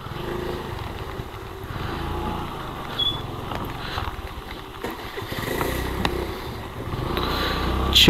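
Suzuki Access 125 scooter's single-cylinder engine running as it rides a rough, rocky track, with scattered knocks from the bumpy ride; it grows louder near the end.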